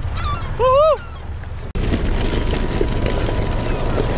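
A four-wheel-drive vehicle driving over a gravel track: a steady rumble of engine and tyres on loose stones, with wind buffeting the microphone. About half a second in there is a short vocal exclamation, and near the two-second mark the sound cuts abruptly and comes back louder and rougher.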